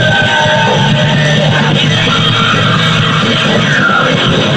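Loud, continuous rock music with guitar, with held notes and a bending pitch near the end.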